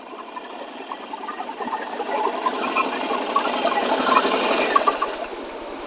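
Harley-Davidson Sportster 48's air-cooled V-twin running at idle with an even pulsing beat, getting louder in the middle and easing off near the end.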